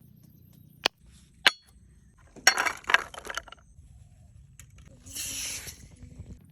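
Several sharp clinks and knocks, a quick cluster of them in the middle, then a short hiss about five seconds in.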